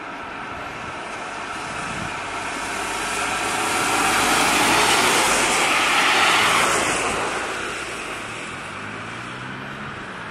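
A car passing on a wet road: the hiss of its tyres on the slushy asphalt swells to a peak about five or six seconds in, then fades away.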